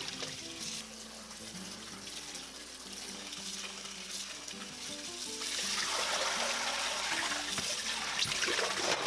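Kitchen sink faucet running onto cabbage in a plastic colander, the water splashing through into a steel bowl below; the splashing gets louder about halfway through.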